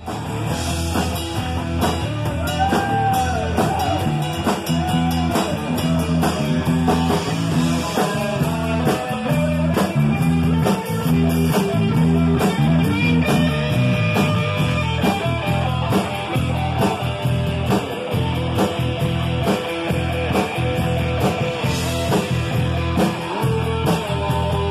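Live rock band playing: an electric guitar lead with bent, sliding notes over a drum kit.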